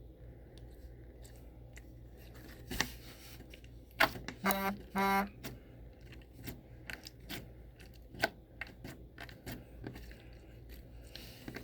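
Slime being squeezed and stretched by hand, giving small wet clicks and pops, with a cluster of louder pops in the middle and two short pitched squeaks close together.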